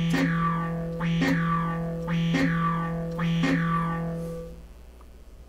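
Analog modular synthesizer sounding a repeated note about once a second over a steady low drone. Each note has a bright attack whose overtones fall away as the envelope closes, with a short lower blip at each one. The notes stop near the end and the sound fades out.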